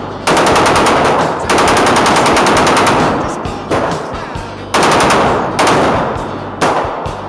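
Rapid gunfire: several strings of quick shots, each string starting suddenly.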